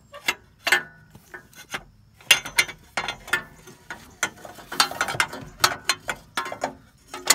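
Irregular clicking and light metallic clatter as a transmission dipstick tube is wiggled and knocked against the exhaust headers and frame while being threaded into place, in loose clusters of taps.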